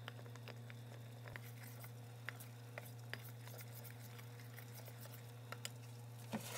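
Metal spoon stirring melting chocolate in a stainless steel bowl: faint scattered clicks and scrapes of the spoon against the bowl, with a slightly louder knock near the end, over a steady low hum.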